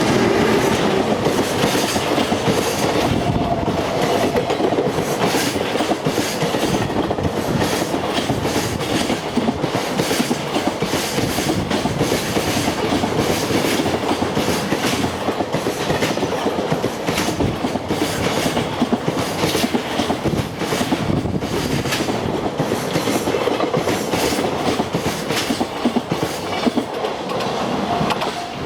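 Long freight train of wagons behind an EF210 electric locomotive rolling past at speed, its wheels clattering over the rail joints in a steady, rapid clickety-clack. A level-crossing bell rings faintly under it, clearest near the end.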